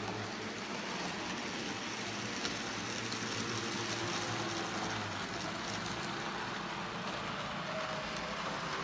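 Model train running on its layout track: a steady whirring noise from the locomotive's motor and wheels on the rails.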